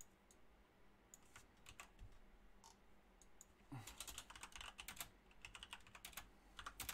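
Faint clicks of typing on a computer keyboard, scattered at first, then a quicker run of keystrokes about four seconds in and another near the end.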